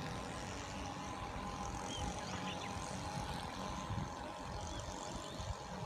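A steady motor drone with a held hum and a rumbling low end, with a few short, faint high chirps over it.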